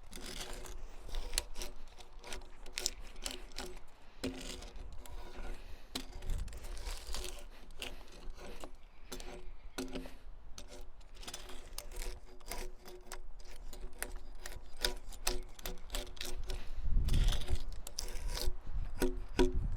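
Bark being scraped and peeled off a partially dead log with a hand tool, in many quick repeated scraping strokes. Wind rumbles on the microphone near the end.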